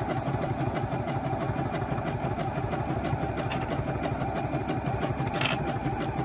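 Juki HZL-G220 computerised sewing machine stitching a 7 mm zigzag at a steady speed, run from its start/stop button rather than a foot control: an even, rapid run of needle strokes. A brief scratchy sound comes in about five seconds in.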